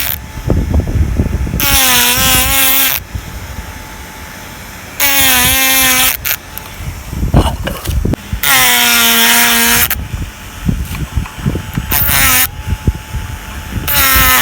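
Handheld electric power carving tool grinding shari deadwood into a shimpaku juniper trunk, switched on in five short bursts of about a second each, its high whine dipping slightly as it bites into the wood. Small knocks and scrapes fill the gaps between bursts.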